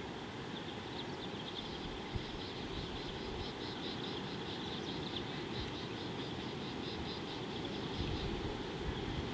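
Outdoor bush ambience: a steady low rumble under a high, rapidly pulsing trill from a small unseen creature. The trill fades out a little past halfway, and there is a single faint tap about two seconds in.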